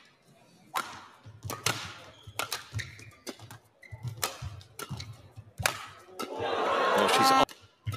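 Badminton rally: sharp racket strikes on the shuttlecock about once a second, with low thuds of players' feet on the court. Near the end a swell of crowd noise builds and cuts off suddenly.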